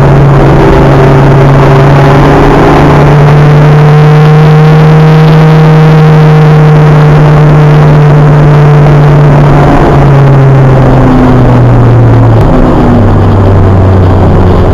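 Acura Integra race car's engine heard from inside the cabin, running hard and loud at high revs. Its pitch steps down twice near the end.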